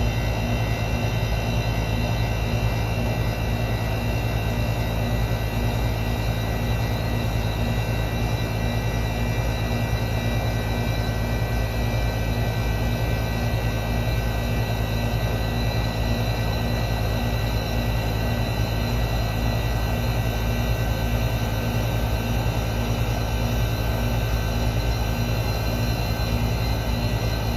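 Old R22 central air conditioner's outdoor condensing unit running steadily, the compressor's low hum under the condenser fan. The system is running a little light on refrigerant.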